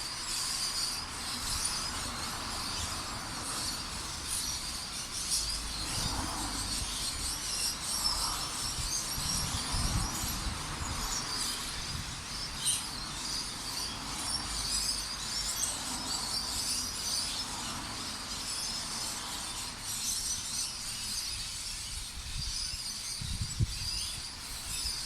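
Many small birds chirping and twittering continuously in a dense, high-pitched chorus.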